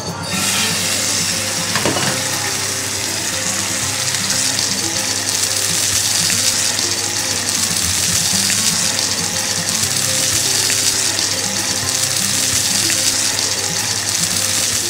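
Tuna steak searing in hot extra virgin olive oil in a frying pan: a loud, steady sizzle that starts suddenly as the fish goes into the pan, just after the start. Background music plays faintly underneath.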